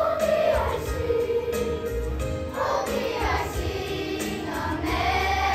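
Children's choir singing together, holding long notes.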